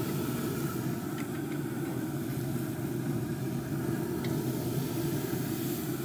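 Steady low rumble of a running pellet grill (Grilla Grills Silverbac), with a few faint clicks as a spatula touches the hot grill grates while ribeye steaks are flipped.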